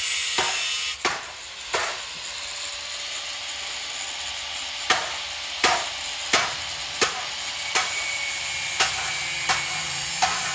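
Hammer blows as sharp knocks, evenly spaced about every 0.7 seconds. A few come first, then a pause of about three seconds, then a steady run. A steady hiss lies underneath.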